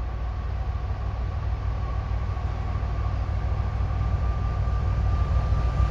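Approaching CN freight train's diesel locomotives: a low, steady engine rumble that grows gradually louder as the train nears.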